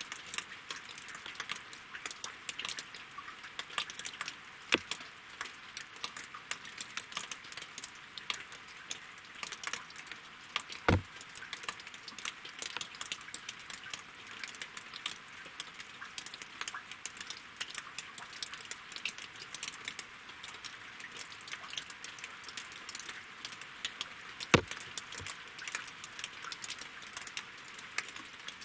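Rain falling on a lake and on logs: a dense, irregular spray of small drop ticks, with a few heavier drops landing louder about 5, 11 and 25 seconds in.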